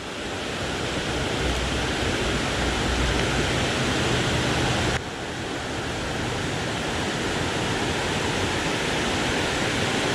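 Steady rush of river water pouring over falls, dipping suddenly in level about halfway through.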